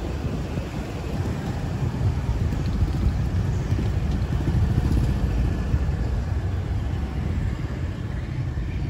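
Steady low rumble of wind buffeting the microphone while moving along a street, mixed with the running of motorbikes in the traffic around it.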